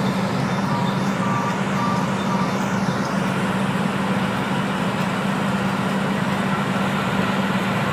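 Oil well drilling rig machinery running steadily with a deep engine hum, with a few short high beeps in the first couple of seconds.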